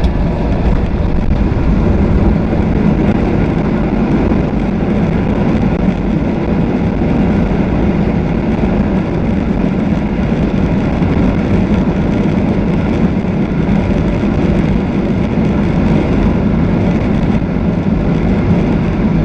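Steady jet airliner cabin noise: a continuous low rumble of the engines and airflow heard from inside the passenger cabin.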